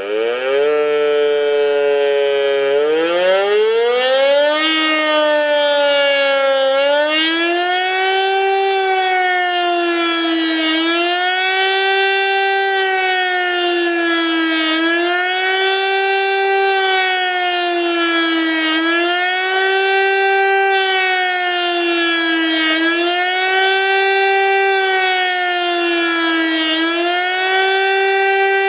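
Civil-defence siren sounding the German public warning signal, a tone that rises and falls. It starts up with its pitch climbing for the first few seconds, then swells up and down about once every four seconds.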